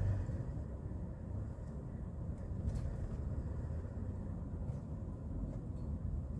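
Steady low engine and road rumble heard inside the cab of a Hyundai Porter II truck cruising on the road.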